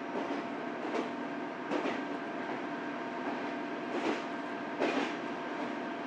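Diesel railcar running, heard from inside the carriage: a steady drone with two pairs of clacks as the wheels pass over rail joints, about a second in and about four seconds in.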